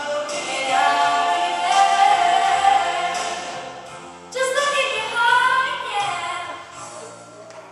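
A worship song: a group of voices singing together over instrumental backing with a bass line. The singing eases off about four seconds in, comes back strongly, and eases again near the end.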